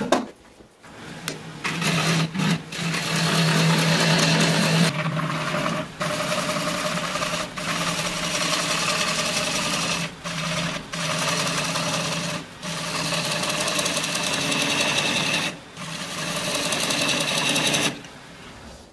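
Wood lathe spinning a pine log while a hollowing tool cuts inside it: a steady scraping hiss over the lathe's hum, with long shavings coming off. It starts about a second in after a sharp click, breaks off briefly several times as the tool is eased off, and stops shortly before the end.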